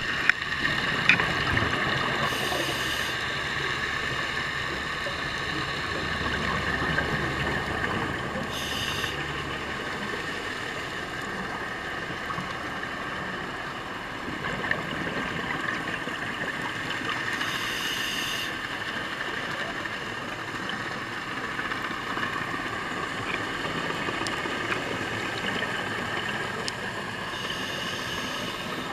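Underwater sound of scuba diving: a steady droning whine with several held tones, broken four times by short hissing bursts of regulator exhaust bubbles, roughly every 6 to 10 seconds.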